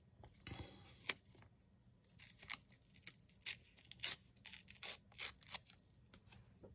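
Washi tape being peeled off its roll and torn into strips by hand: a string of faint crackles and small sharp snaps.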